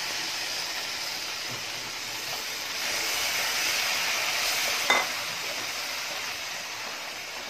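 Ground tomato sizzling in hot oil with fried onions and spices in a nonstick pan while a wooden spatula stirs it, a steady frying hiss. A single clink about five seconds in.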